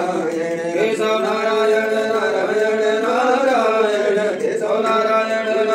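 A voice chanting puja mantras in a continuous sing-song recitation, drawing out long held notes.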